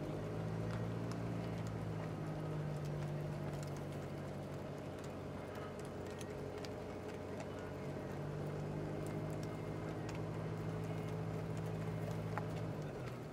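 Hooves of Icelandic horses clip-clopping on a gravel road, heard from inside a car that moves slowly alongside them. Under them runs the car's steady low engine hum, which drops away near the end.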